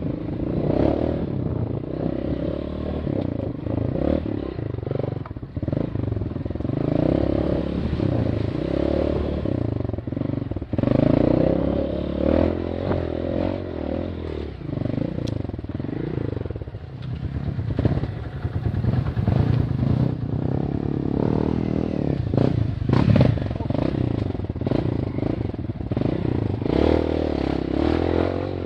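Single-cylinder trail motorcycle engine running and revving up and down as the bike rides off-road, with clattering and scraping over rough ground.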